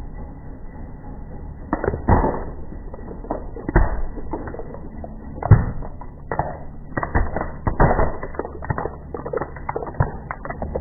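Plastic 3x3 puzzle cubes cracking and snapping apart under a slowly rolling car tyre: an irregular run of sharp cracks and clicks, the loudest about halfway through and a cluster just after, over a low steady hum.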